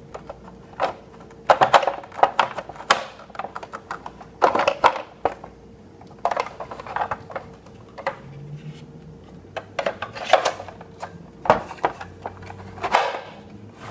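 Hard plastic toy parts clacking and knocking as a small dragon boat is handled and slid into the hull of a plastic toy pirate ship: a string of irregular clicks and knocks.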